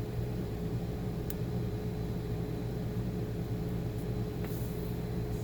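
Steady low electrical hum with an even tone above it and a light hiss, broken by one faint click just over a second in.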